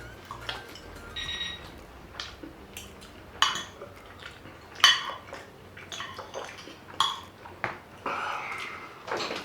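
Cutlery clinking and scraping against dishes during a meal of Chinese takeaway: a series of sharp clicks a second or so apart, with a short scrape near the end.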